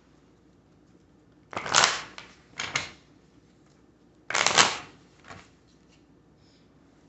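A deck of oracle cards being shuffled in three short bursts, the first and third the loudest, with a faint fourth one after them.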